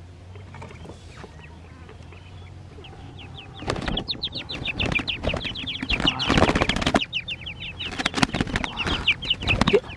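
A bird beating its wings hard and giving a fast run of short, falling squawks. It starts about four seconds in and comes in two loud bouts with a brief lull between them.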